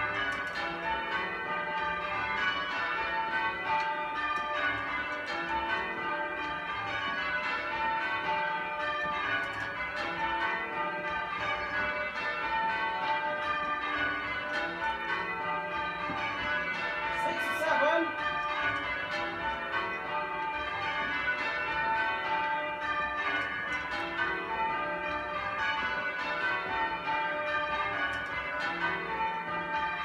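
A ring of eight church bells with a 20 cwt tenor, rung full circle in change ringing, heard from the ringing chamber below the bells. The bells strike one after another in an unbroken even rhythm, each note ringing on into the next.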